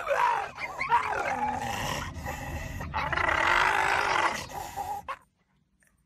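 Dog vocalizing in drawn-out calls that waver up and down in pitch, cutting off abruptly about five seconds in.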